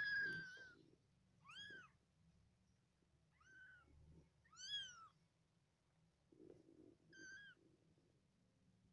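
Newborn kittens mewing: about five short, high-pitched mews, each rising then falling in pitch, a second or more apart, the loudest right at the start and about halfway through.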